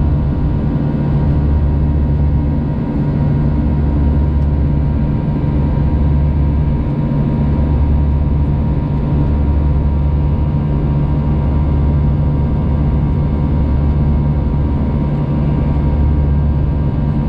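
Airbus A321-200 jet engines heard from inside the passenger cabin near the wing during the climb after takeoff: a loud, steady deep drone with a few faint steady whining tones above it.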